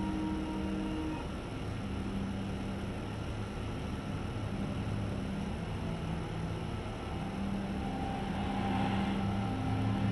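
Slow ambient background music: long held notes that change every second or two over a steady low rumbling drone.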